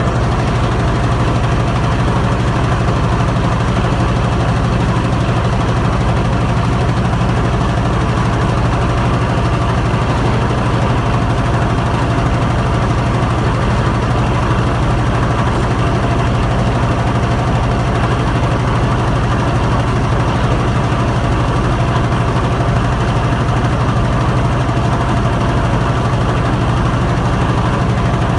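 Machinery of a thermobonded felt production line running at a constant speed, a steady drone with a strong low hum and a few fixed higher tones over an even mechanical noise.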